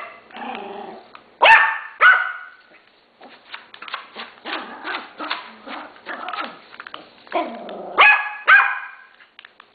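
Yorkshire terrier barking excitedly at a small remote-control car: two sharp barks about a second and a half in, two more about eight seconds in, and a run of quicker, softer yaps in between.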